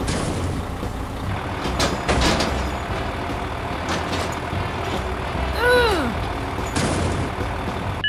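Heavy construction-machine engine rumble, with short air-like hisses near the start and again near the end. A few clunks come around two and four seconds in, and one short rising-and-falling squeal just before six seconds.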